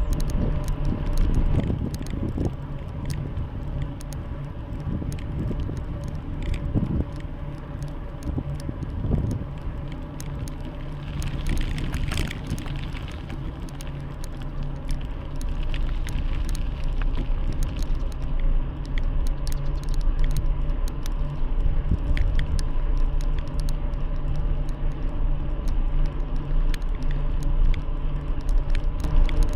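Bicycle riding on a road: a steady rumble of tyres and rushing air with frequent small rattles and clicks from the bike.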